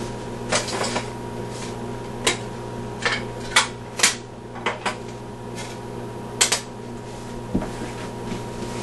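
Small objects being set down and shifted on a tile floor by hand: about nine sharp, irregular clicks and clacks.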